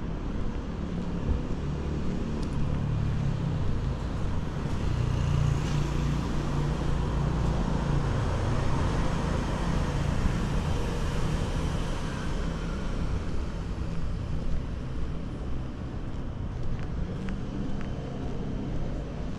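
Urban road traffic: a steady low rumble of cars, with one vehicle swelling past in the middle.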